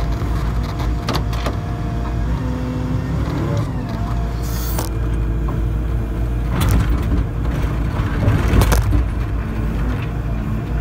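Hydraulic excavator working: its diesel engine runs steadily under load while tones from the engine and hydraulics shift in pitch as the boom and bucket move. A brief hiss comes about four seconds in, and knocks and scrapes from the bucket and arm come through, the loudest about eight and a half seconds in.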